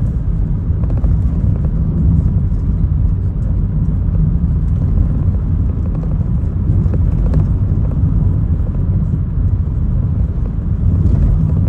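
A car driving along steadily: a continuous low rumble of engine and road noise.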